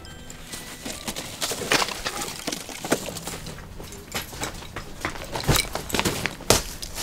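Hurried footsteps crunching in packed snow, with two heavy thuds near the end as people jump down from a ledge and land in the snow.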